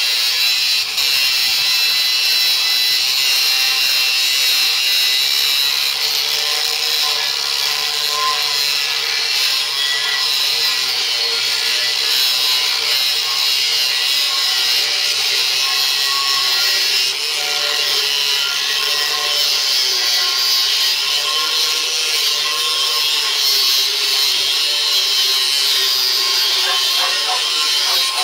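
Kalibr 755 W angle grinder with a small, worn-down cut-off disc cutting through 5 mm steel plate under load. It makes a steady high grinding sound, with the motor's pitch wavering slightly as the disc bites.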